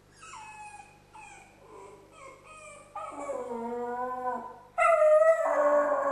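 West Highland white terrier whimpering in a few short falling whines, then howling: a long howl about three seconds in and a louder, longer one near the end.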